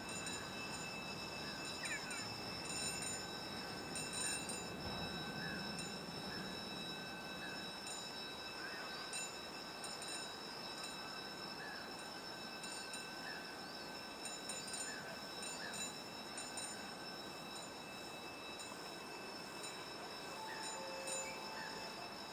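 Electric locomotive hauling a freight train slowly through a rail yard. A steady high-pitched whine of several tones sits over a low rumble, with short faint chirps now and then.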